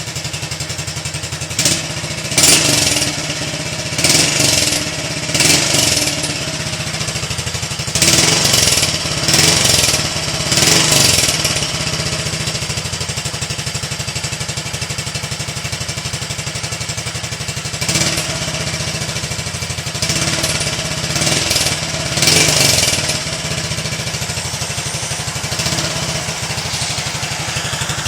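Honda Biz EX single-cylinder motorcycle engine through a Turuna aftermarket exhaust, idling with a quick, even pulse and blipped up in short revs. There are several blips early on, a longer spell of revving about a third of the way in, and a few more blips later. The exhaust is fitted with its sealing ring.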